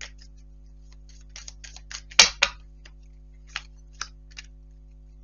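Tarot cards being handled and laid down on a table: a run of light clicks and taps, the loudest pair about two seconds in, then a few single ticks.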